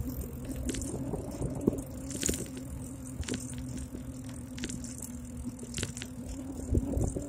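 Ride noise from a moving bike picked up by a handlebar-mounted phone: a low road rumble and a steady low hum, with frequent short clicks and rattles from the mount and bike over the pavement.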